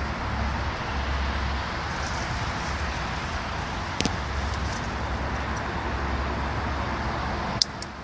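Steady hum of distant city road traffic, with an on-and-off low rumble. There is one sharp click about four seconds in and two more just before the end.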